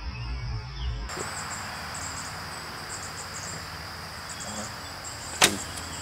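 A single sharp crack about five seconds in: a Jennings Devastator crossbow shot heard from about 20 yards downrange, over steady insect chirping. The first second is the tail of electronic background music.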